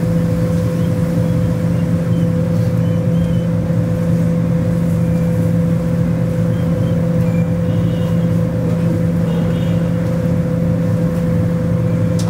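Tour boat's motor running steadily: a constant low hum with a fainter steady higher tone above it.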